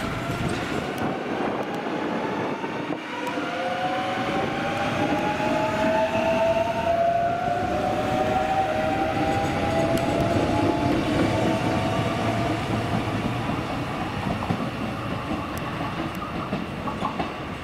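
CP series 2240 electric multiple unit pulling out of the station, its traction equipment whining as it accelerates away. The whine rises in pitch, drops back about seven seconds in, and climbs again.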